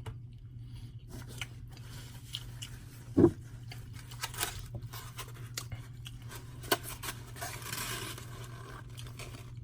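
Small clicks, scrapes and rubbing sounds of dishes and utensils being handled at a table, with one louder knock about three seconds in, over a steady low hum.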